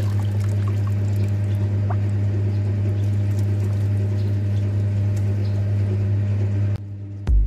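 Water pouring and running into a toilet bowl, over a steady low hum. The water and hum stop near the end, followed by a low thump.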